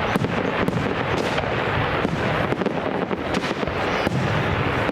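Fireworks display: a continuous rapid barrage of bangs and crackles, several sharp reports a second over a steady rumbling wash.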